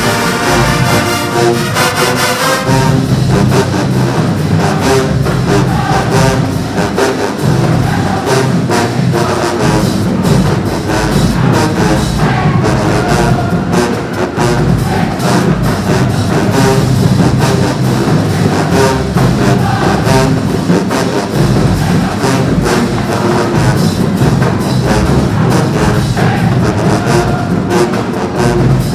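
Marching band brass playing loudly, with low horns and percussion underneath. A held chord about two and a half seconds in gives way to a busier passage.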